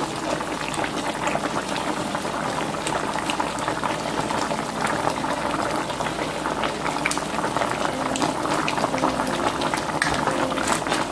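Pork shoulder, potatoes and onions simmering in sauce in a roasting pan on a stovetop burner: a steady bubbling hiss with many small pops.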